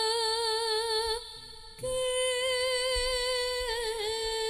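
A Javanese sinden (female vocalist) singing long held notes with a wavering vibrato. The line breaks off about a second in, picks up again on a slightly higher note, and ends with a quick curling ornament.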